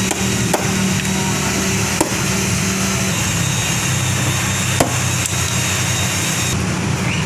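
A motor running steadily with a low hum, and three sharp knocks over it, the last after a longer pause.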